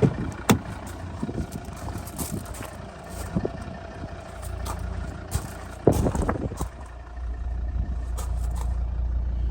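Clicks and knocks of the car's driver's door and cabin being handled, with a heavy thump about six seconds in, followed by a steady low hum that starts about seven seconds in and continues.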